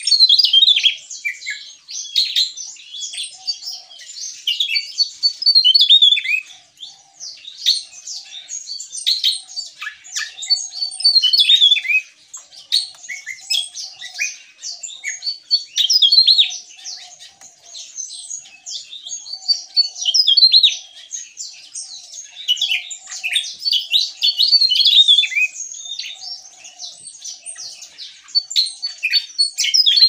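Javan tesia singing loudly and continuously: long bursts of rapid, high-pitched twittering and trilled notes, with brief dips between bursts every few seconds.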